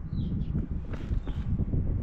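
Buell XB12SCG Lightning's air-cooled V-twin idling with an uneven low pulse, running without abnormal noises.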